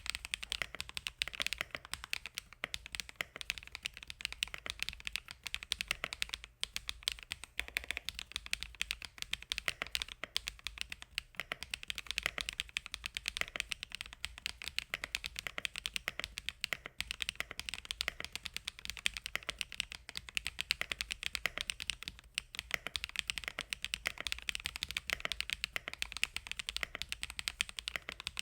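Mechanical keyboard fitted with hand-lubed Sillyworks Hyacinth V2 linear switches, typed on rapidly and continuously, with a few brief pauses.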